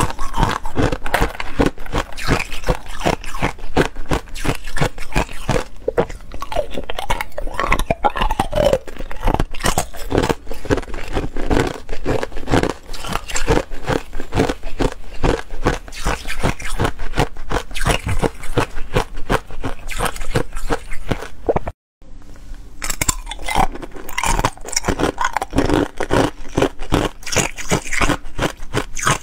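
Ice crunched and chewed close to a clip-on microphone, a dense stream of sharp cracks and crunches. It drops out for a moment near the three-quarter mark, then the crunching resumes.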